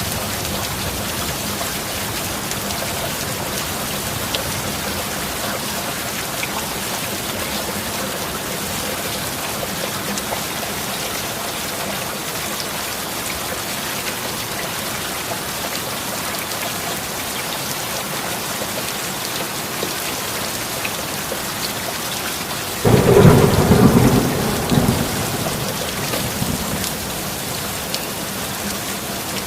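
Steady rain hissing. About three quarters of the way through comes a sudden loud thunderclap that rumbles off over two or three seconds.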